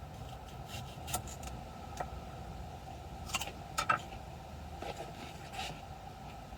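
Light clicks and small clatters of kitchen items and containers being handled, a few scattered knocks with a louder pair about four seconds in, over a steady low background rumble.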